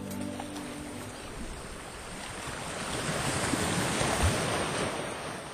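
A sea wave rushing in: a rising wash of surf that peaks about four seconds in, then draws back and fades.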